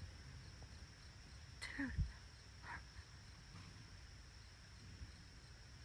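Night insects, crickets, trilling in one steady high drone, with a short falling cry about two seconds in and a fainter one a second later.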